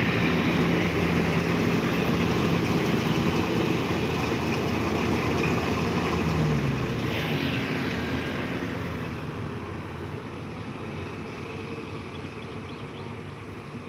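Engines running: the rice combine harvester working in the field, mixed with highway traffic. About seven seconds in, one engine's pitch drops, and the sound fades over the last few seconds.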